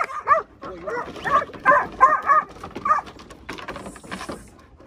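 Working sheepdog barking repeatedly, about three short barks a second, as it backs and forces sheep along a packed yard race. The barking stops about three seconds in, followed by a few sharp knocks.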